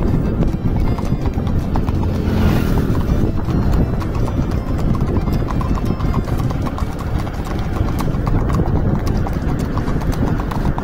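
Horse's shod hooves clip-clopping on asphalt at a steady, rapid gait, over a steady low rumble from the vehicle filming alongside.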